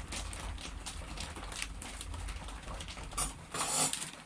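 Low steady hum of a potter's wheel, with small rubbing and clicking sounds of fingers working wet clay. Near the end a brief louder rushing hiss comes as the hum dies away.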